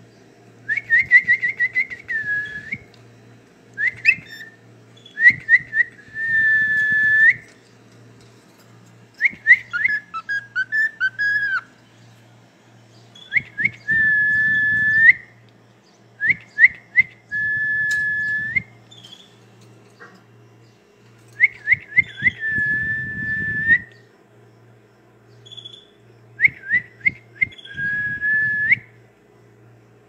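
Cockatiel whistling a repeated phrase about eight times: a few quick short notes, then a longer held note, with short pauses between phrases.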